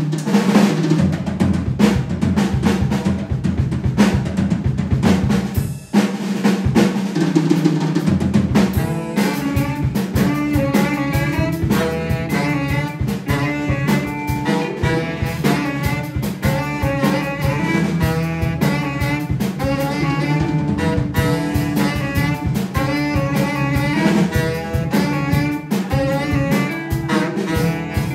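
Live jazz band: drum kit playing busy fills over an electric bass line, then about nine seconds in the tenor saxophone and the rest of the band come in with the tune over the drums.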